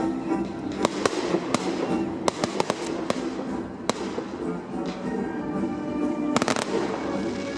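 Fireworks going off over music played for the show: a string of sharp bangs and cracks at uneven intervals, with a quick cluster of several cracks about six and a half seconds in.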